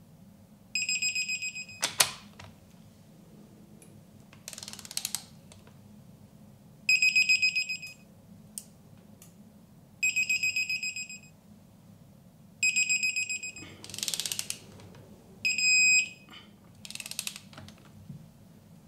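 Digital torque wrench beeping five times in pulsing bursts of about a second, each time an ARP head stud on the 4B11T head reaches its set torque. Between the beeps comes the ratchet's rasp as the wrench is swung back, with a sharp click about two seconds in.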